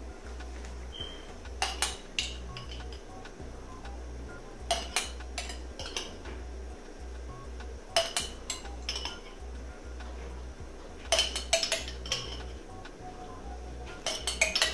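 Metal spoon clinking and scraping against a glass jar of tomato sauce as sauce is scooped out, in short clusters of knocks every few seconds.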